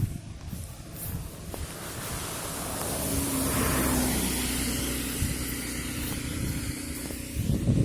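A car driving past on a wet road: its tyre hiss and engine drone swell to a peak about halfway through, then fade away.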